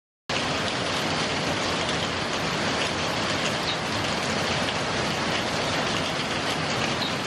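Heavy rain pouring down: a steady, dense hiss that cuts in suddenly just after the start.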